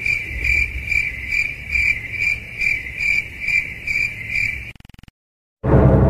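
Cricket chirping sound effect: a steady high chirp pulsing about twice a second, which stops abruptly with a brief stutter. Near the end, eerie music begins.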